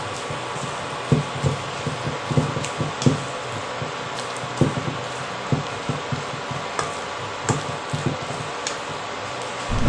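A spatula stirring and folding a wet vegetable-and-shrimp batter in a stainless steel bowl: irregular soft squelches and knocks, about one or two a second, over a steady hiss.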